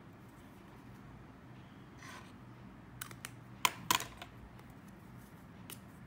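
Small sharp clicks and taps of plastic pens being handled and capped, as a fountain pen is put away and a felt-tip artist pen is taken up. A soft scrape comes first, then the loudest pair of clicks just past halfway, then one lighter click near the end.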